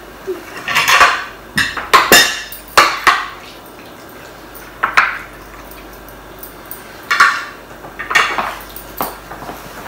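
Metal spoons clinking and scraping against ceramic plates and serving bowls as curry and rice are spooned out, in irregular sharp clinks with a quieter stretch in the middle.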